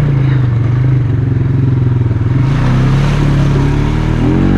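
Polaris Sportsman ATV engine running as it is ridden along a trail, with a rushing hiss about halfway through. The engine revs up with a rising pitch near the end.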